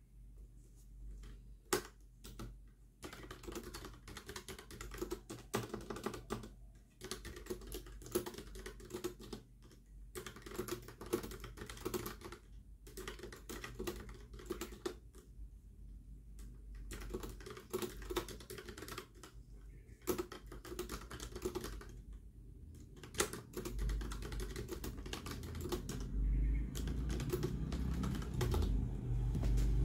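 Clicky typing on a keyboard with round, typewriter-style keycaps, in runs broken by short pauses. A low rumble rises underneath in the last few seconds.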